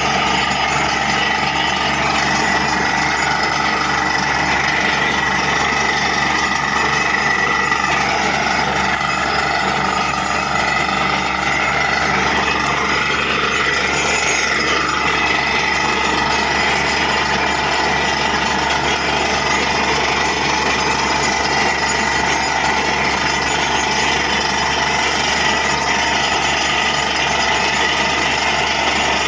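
Truck-mounted borewell drilling rig running steadily: a loud, continuous mechanical rattle as it drills and flushes muddy water and rock cuttings up out of the bore.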